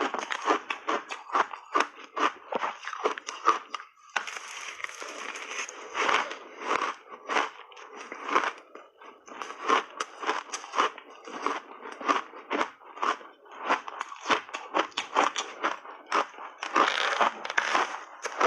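Close-up chewing and crunching of frozen shaved ice, a dense run of crackly crunches, with a short lull about four seconds in.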